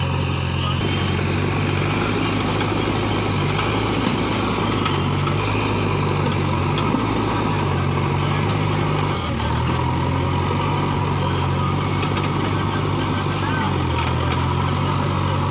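Diesel engine of a JCB 3DX backhoe loader running as it digs and loads soil, its pitch stepping up and down several times as the machine works, with a tractor's diesel engine idling alongside.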